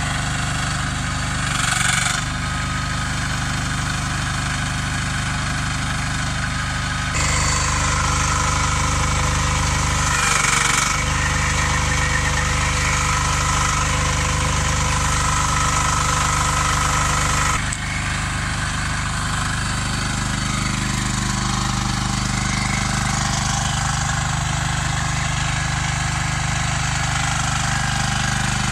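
Shanding SD12 mini crawler excavator's engine running steadily as the machine drives on its rubber tracks. The sound changes abruptly about seven seconds and again about eighteen seconds in.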